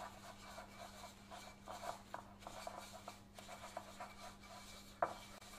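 Faint, irregular scratchy rubbing of a tissue wiping cake release around the cavities of a metal square-cup baking tin, with a short knock about five seconds in.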